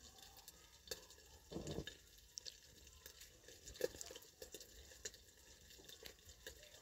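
Faint scrapes and clicks of a metal spoon stirring chicken liver and gizzard pieces frying in a black wok, with louder scrapes about one and a half seconds in and again near four seconds.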